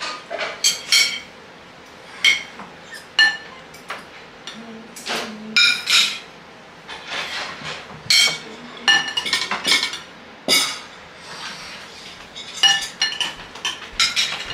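Metal spoons clinking and scraping against ceramic plates and a serving bowl while scooping rice: a string of sharp, ringing clinks at uneven intervals.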